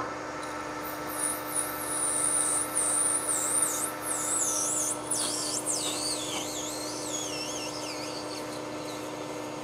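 Metal lathe running with a steady hum while a parting tool cuts off the workpiece. The cut gives a high, wavering squeal from about a second in that fades out around eight seconds in.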